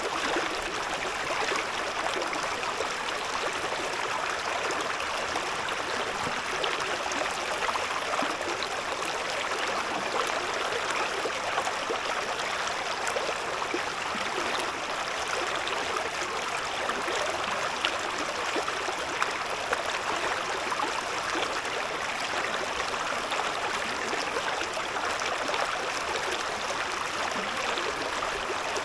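A shallow river babbling steadily over stones, an even rush of water with small gurgles and splashes throughout.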